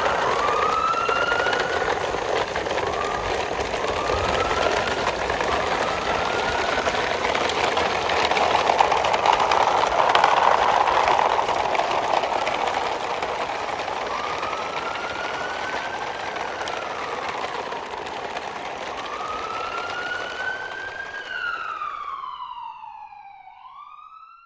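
A siren wailing in slow rising and falling sweeps, repeating every couple of seconds over a steady engine-like rumble; the whole sound fades out near the end.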